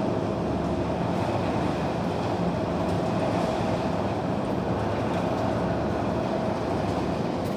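Storm wind and heavy rain, a steady dense rushing noise.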